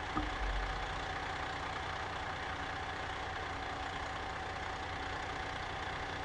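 Fire engine's diesel engine idling: a steady rumble with a faint constant whine over it.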